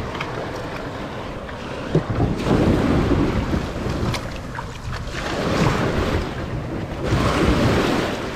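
Small waves washing and surging over the stones around a kayak's hull at the shoreline, swelling every second or two. Wind buffets the microphone, and there are a couple of light knocks.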